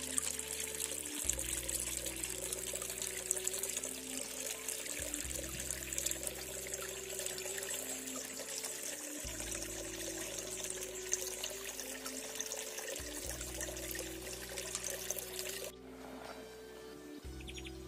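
Small stream of water trickling, an even splashing hiss over background music with long held notes; the water sound cuts off suddenly a couple of seconds before the end, leaving only the music.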